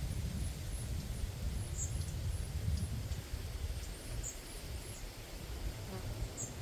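Wind rumbling on the microphone, with short high chirps repeating about every two seconds.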